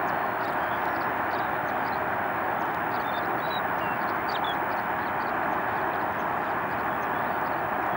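Steady distant road-traffic roar with no change in loudness, and a few faint short high chirps near the middle.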